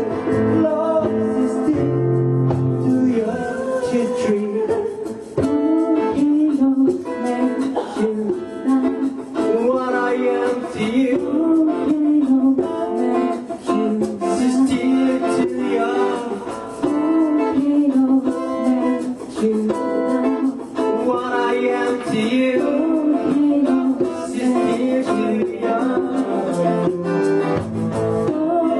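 Music: a song with guitar, the notes moving continuously without a break.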